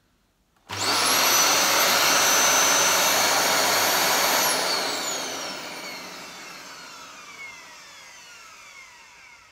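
Dyson DC07 upright vacuum cleaner's motor switched on with its bin off. It comes up to speed almost at once, runs steadily with a high whine for about four seconds, then is switched off and winds down, its whine falling away over several seconds. The motor sounds good.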